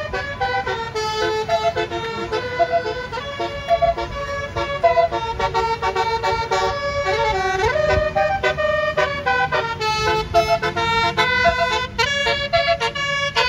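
Bus telolet horn, a multi-trumpet basuri horn, playing a fast tune of quickly changing notes over a low rumble.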